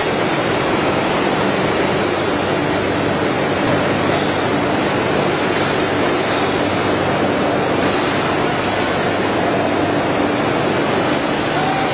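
Veneer splicer machine running: a steady, loud mechanical noise with a faint low hum and a few short hisses.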